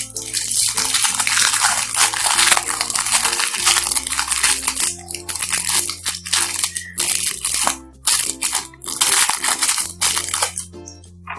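Fluffy slime being squished and mixed by hand: a loud, dense crackling with short breaks, the sound of air bubbles in the foamy slime popping. Light background music plays underneath, and the crackling stops near the end.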